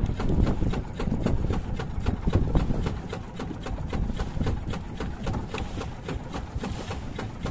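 Small fishing boat's engine rumbling steadily, under a quick, uneven run of short knocks and clicks, several a second.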